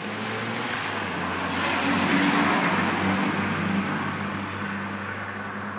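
A motor vehicle passing by: a rush of road noise that swells to a peak about two seconds in and then fades, over a steady low hum.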